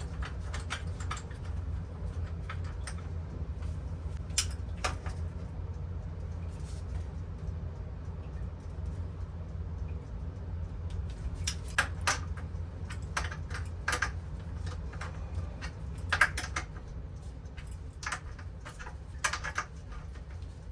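Scattered light clicks and clinks of tools and parts being handled, thickest in the second half, over a steady low hum.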